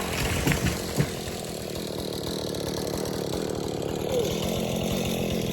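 Two-stroke chainsaw idling after a cut, with two short knocks about half a second and a second in.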